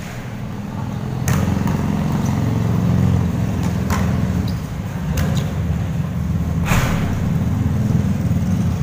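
A steady low droning hum with a few sharp knocks of a basketball bouncing on the concrete court, the loudest knock about seven seconds in.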